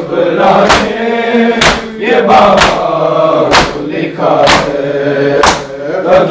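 A group of men chanting an Urdu noha in unison, with the strikes of matam (hands beating bare chests) landing together about once a second.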